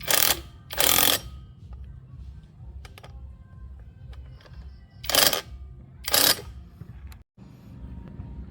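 Four short, loud hissing bursts of spray or air in two pairs, about a second apart, the first pair near the start and the second about five seconds in, over a low steady hum.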